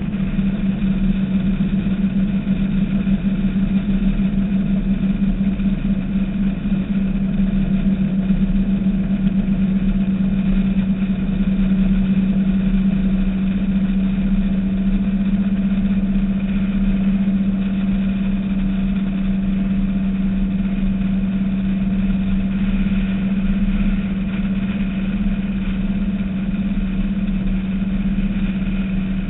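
Engines of a Skater performance catamaran running steadily under way: one unbroken drone with a strong low hum that holds the same pitch throughout.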